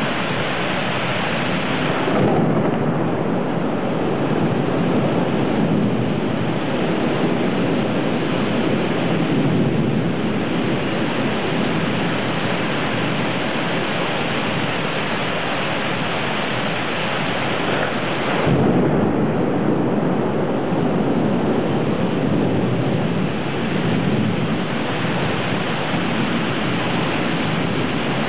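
Heavy rain pouring down steadily, with thunder rumbling twice: once about two seconds in, and again starting suddenly about two-thirds of the way through.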